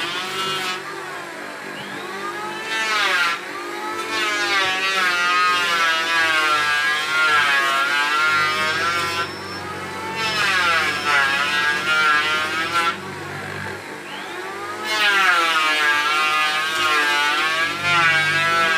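Chisel mortising machine running as its hollow chisel and bit are pushed into a wooden beam over and over. The motor's pitch sags and climbs again every couple of seconds, easing off twice, about a second in and again past the middle.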